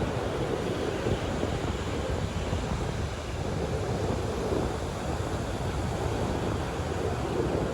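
Waves breaking and washing on a beach: a steady, even rush of surf, with wind buffeting the microphone.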